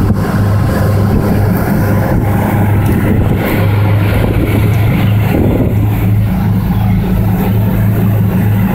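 Steady low engine drone with a slight regular throb, heard from a car on a car ferry's vehicle deck.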